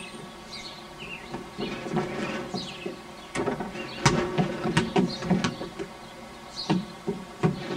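Small toy basketball bouncing and rolling on a wooden deck, mixed with a toddler's footsteps on the boards: a scatter of knocks, most of them from about three seconds in and a few more near the end.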